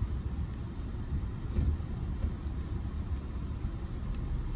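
Steady low rumble of a car cabin, with a few faint short clicks of a small dog licking from a paper cup and licking its lips.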